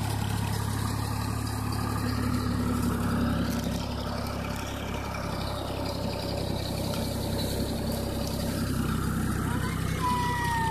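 Ford 3000 tractor's three-cylinder engine running steadily under way, towing a trailer loaded with bales.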